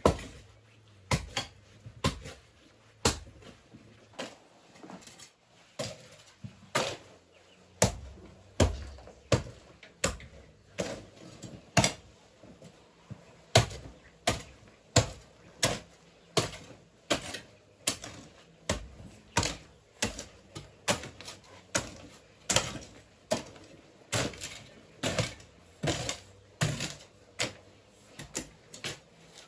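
A hoe striking earth over and over, with sharp blows at roughly one to two a second and uneven spacing, as earth is dug to rebuild a kitchen hearth.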